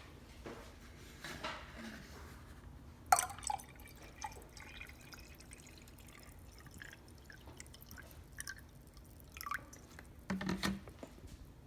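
Liquid dripping, with scattered light clicks and knocks; a sharp click about three seconds in and a heavier knock near the end.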